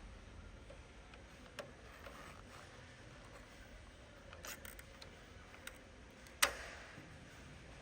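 A few light clicks and taps over a faint hiss, with one sharper, louder click about six and a half seconds in.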